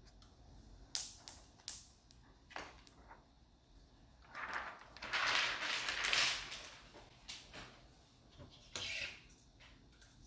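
Plastic laptop parts being handled during reassembly: several sharp clicks and taps, then a few seconds of rustling and scraping, and one more short scrape near the end.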